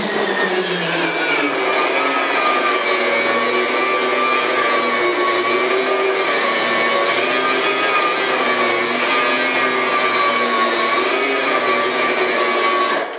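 Host Liberator carpet machine running its brushes through piles of Host dry-extraction sponges, spreading them over the carpet: a steady motor whine that drops in pitch over the first couple of seconds, then holds with slight wavers. It shuts off at the very end.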